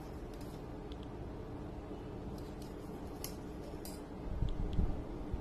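Small tools handled on a workbench: a few light, sharp clicks and taps scattered over a steady low hum, with a couple of dull low bumps near the end.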